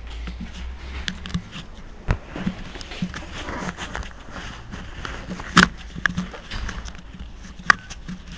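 Mercedes-Benz Citaro G articulated city bus standing with its diesel engine idling: a low, steady hum. A few sharp knocks cut through it, the loudest about five and a half seconds in.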